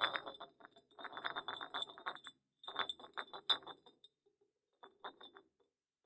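Glass cola bottle rolling over hard ground: a rapid rattle of small clicks with a glassy ring, coming in spells. A last short, fainter roll comes about five seconds in.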